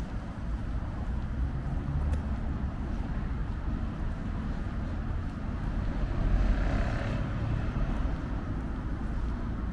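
City street traffic: a steady low rumble of road vehicles, with one vehicle passing close about six seconds in.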